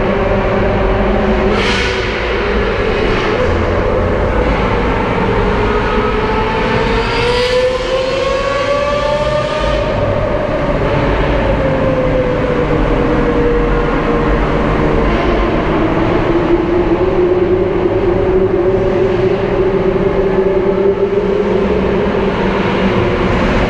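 Lamborghini Aventador SVJ Roadster's V12 engine running under way, its pitch climbing as it accelerates and falling back as it eases off, more than once.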